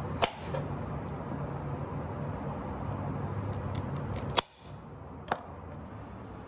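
Knife slicing through a raw carrot onto a wooden cutting board: a sharp knock a quarter second in, then a quick cluster of knocks near four seconds, over a steady low hum. The background then drops away suddenly, and one more single click follows about a second later.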